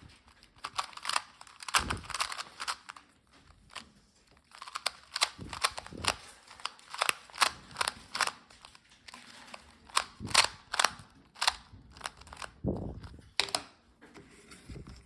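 Rubik's cube being turned fast in the hands, its layers snapping round in quick, irregular clicks and clacks with short pauses between runs of turns.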